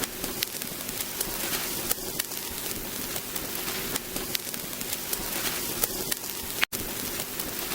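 Vinyl LP surface noise: a steady hiss with scattered small crackles and pops. It cuts out for an instant near the end.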